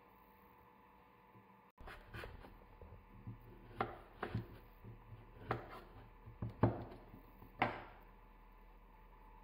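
Kitchen knife slicing dried, cured basturma (turkey and chicken fillet) on a wooden cutting board, the blade knocking on the board about seven times at irregular intervals.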